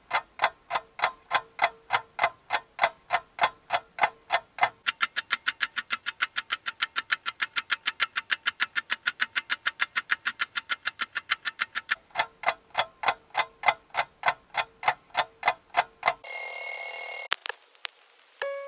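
Countdown timer sound effect: a clock ticking steadily, about three or four ticks a second, twice as fast through the middle, then slowing again. An electronic alarm beep sounds for about a second near the end.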